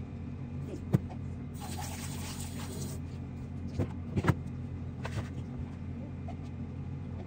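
Steady low motor hum of a kitchen appliance. A few sharp knocks come about one second and four seconds in, and a short hiss comes near two seconds.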